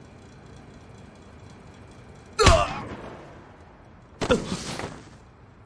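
Two punch impacts in an anime fight, each with a man's pained grunt, about two and a half and four seconds in; the first is the louder. A low, steady hum runs before them.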